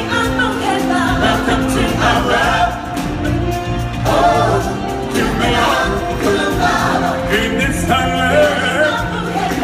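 Stage-show music: a group of voices singing in chorus over instrumental backing, continuous and loud.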